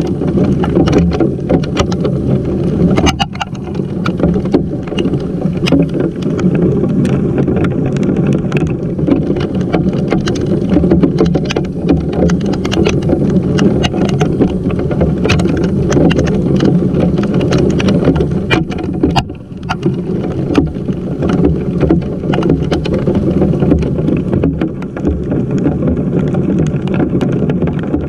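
Hail and heavy rain pelting a GoPro camera and the wet wooden porch around it: a loud, steady hiss packed with sharp ticks of stones striking, heard from a mic inside the camera.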